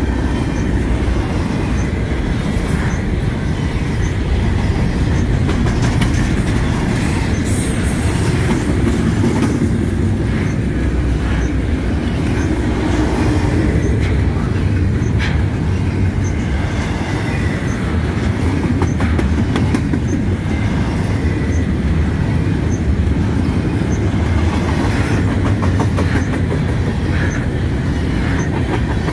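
Intermodal freight train of double-stack container well cars rolling past: a steady, loud rumble of steel wheels on rail with irregular clicking over the rail joints and a faint, thin wheel squeal about halfway through.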